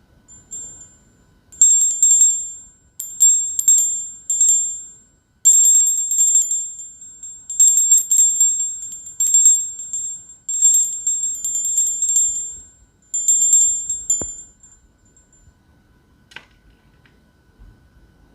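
A small high-pitched bell rung again and again in short trilling bursts for about twelve seconds, then stopping, followed by a single click.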